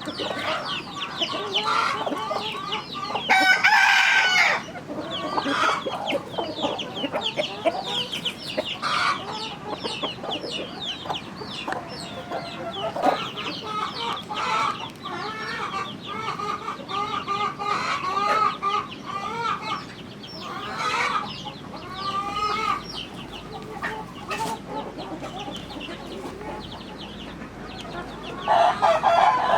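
A flock of chickens clucking and calling continuously, many short calls overlapping, with louder calls about three seconds in and again near the end.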